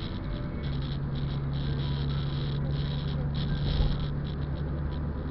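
Inside a car driving on a wet road in rain: a steady low engine hum and road rumble, with a crackling patter of rain on the windshield. A single dull thump comes a little under four seconds in.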